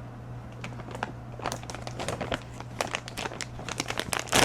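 A bag crinkling and rustling in irregular bursts as hands rummage through it to pull out wool fibre.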